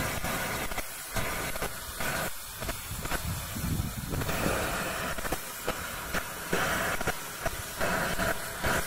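Three-cylinder Bulleid West Country class steam locomotive working slowly, with heavy exhaust beats from the chimney about once a second over a steady hiss of escaping steam.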